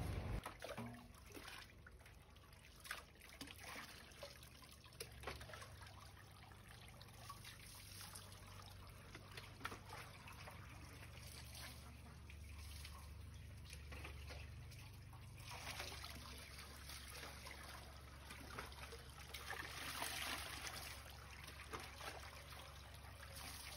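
Faint trickling and dripping of bathwater into a metal basin, over a low steady hum, briefly louder about twenty seconds in.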